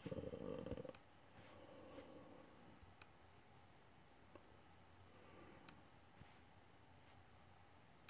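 Computer mouse buttons clicked one at a time, a couple of seconds apart: three sharp clicks and a fourth right at the end. A short low hum sounds in the first second.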